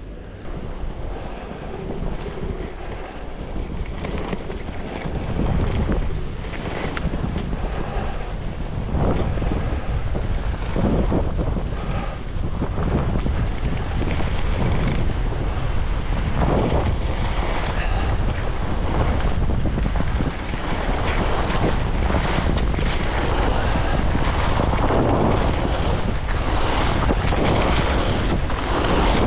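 Wind buffeting the microphone of a skier on the move, building over the first few seconds, with the scrape of ski edges carving turns on groomed snow swelling and fading every couple of seconds.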